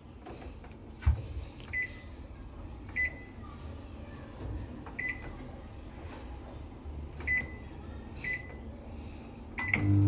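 Microwave oven control panel beeping as its buttons are pressed: five short, high beeps spread over several seconds, with a low thump about a second in. Right at the end the oven starts running with a low, steady hum.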